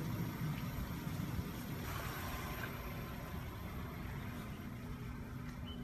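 Car engine idling: a steady low rumble with a faint constant hum.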